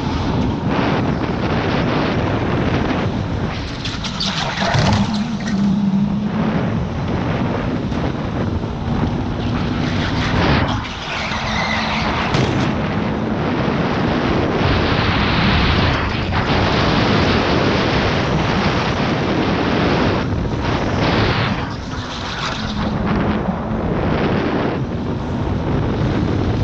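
Electric go-kart at speed, heard from a camera mounted on the kart: a loud continuous rush of wind and tyre noise, with a low hum from the electric motor that comes and goes.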